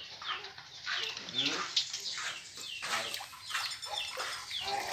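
Animal calls: a steady string of short, high chirps, each falling in pitch, several a second.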